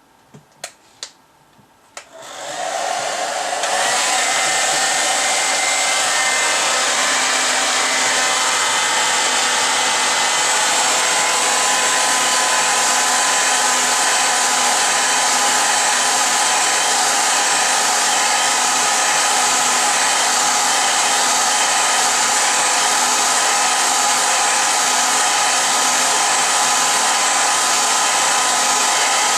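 A few sharp clicks, then an electric blower motor spins up over about two seconds and runs loud and steady, a rushing air noise with a faint whine in it.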